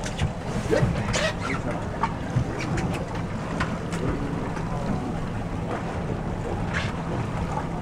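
Fishing boat's outboard motor running at low idle with a steady low hum, under wind noise on the microphone. A few splashes about a second in, from a hooked chinook salmon thrashing at the surface.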